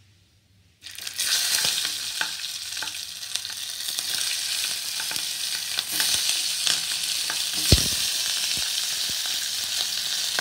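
Stuffed green capsicums being lowered into hot oil tempered with mustard seeds, which sizzles from about a second in, a steady hiss with scattered small pops. A single sharp knock comes about three quarters of the way through.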